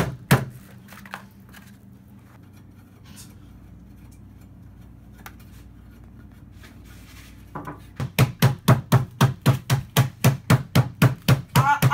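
Two sharp knocks, then a low steady room hum. From about eight seconds in comes a fast, even run of hard knocks, about five a second.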